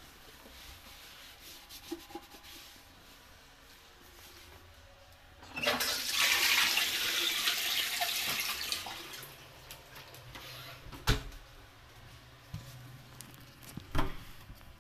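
A toilet flushing: a sudden rush of water about five seconds in, loud for around three seconds and then dying away. Two sharp knocks come later, near the end.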